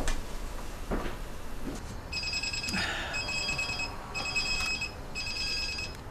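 A few faint knocks, then a telephone ringing in four short, high trilling bursts about a second apart.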